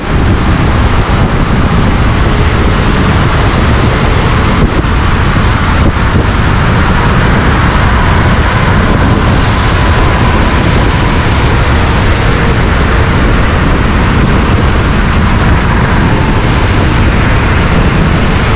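Loud, steady wind rush on the microphone of an electric scooter ridden fast downhill, with a couple of brief knocks about five seconds in.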